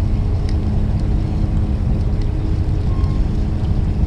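Fishing boat's engine running steadily: a low rumble with a constant hum.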